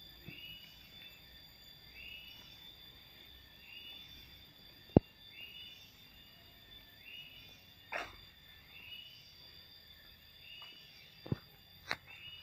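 Forest wildlife ambience: a steady high drone with a short, arched call repeating about once a second. A sharp click sounds about five seconds in, and there are a few more knocks near the end.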